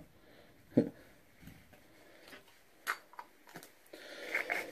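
A sharp click and a few faint taps from hands packing ground cannabis from a metal grinder into a glass bong bowl, with a soft sound building up near the end.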